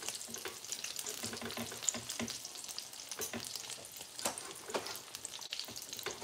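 Chicken pan-frying in oil, a steady sizzle, with irregular sharp taps of a knife cutting through cooked chicken onto a wooden cutting board.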